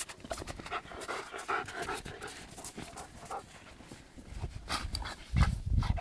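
A dog panting rapidly and heavily while playing in snow, with a few loud low thumps near the end.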